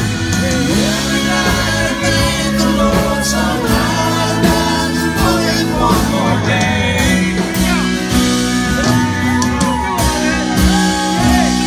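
Live country band playing a song at full volume: guitars and drums, with a lead vocal line over them.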